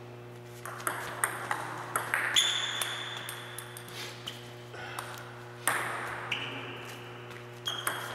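Table tennis ball clicking off paddles and the table in quick rally exchanges, several sharp clicks a second, with a high ringing tone hanging after some hits. The clicks die away for a moment about four seconds in, then pick up again. A steady low hum runs underneath.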